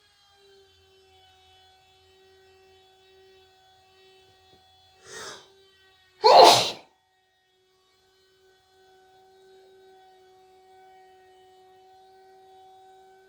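A person sneezing once: a short breathy sound about five seconds in, then a loud sneeze a second later, over a steady background hum.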